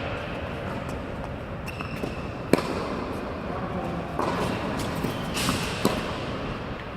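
Tennis balls being struck by rackets and bouncing on an indoor court: sharp pops, the loudest about two and a half seconds in and another near six seconds, echoing in the hall, with short shoe squeaks between them.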